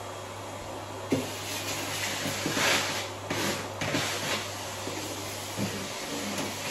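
Vacuum cleaner running out of view: a steady low hum, with irregular knocks and swishing surges of hiss from about a second in.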